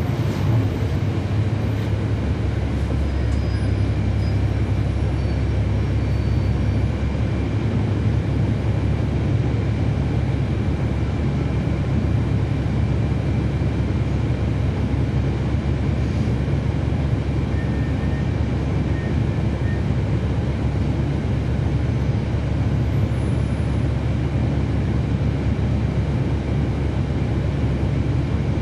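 Cummins ISL9 diesel engine of a 2012 NABI 40-SFW transit bus running at a steady pitch, heard from inside the passenger cabin, with a deep hum under a constant wash of noise.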